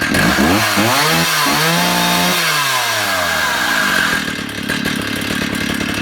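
Stihl 045AV 75cc two-stroke chainsaw revved from idle to full revs, held briefly, then dropping back to a steady idle about four seconds in. It rises and falls cleanly with the throttle, a saw running as it should.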